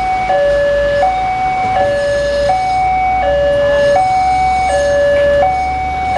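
Indonesian railroad level-crossing warning alarm sounding from the horn speaker on the signal mast. It is an electronic two-note tone alternating high and low, each note lasting about three-quarters of a second, warning that a train is coming.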